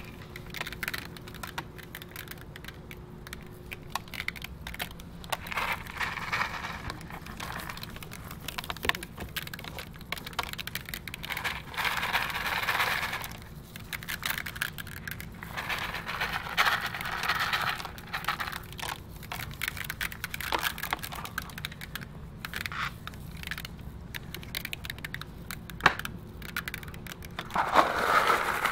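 Crushed glass and mirror chips crackling and clicking as they are handled and scattered by hand, with several swells of hiss lasting a second or two.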